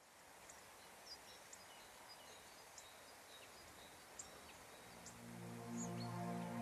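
Faint outdoor background noise with scattered short, high bird chirps. Soft, sustained ambient music fades in about five seconds in.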